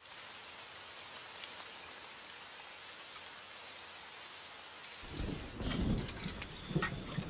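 Steady rain falling. About five seconds in, a low rumble of thunder swells up beneath it.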